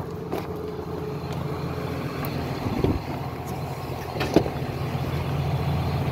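John Deere 7530 tractor's six-cylinder diesel engine running steadily at low revs while the tractor stands still, a little louder toward the end. Two short knocks stand out, a little under 3 seconds in and again at about 4.5 seconds.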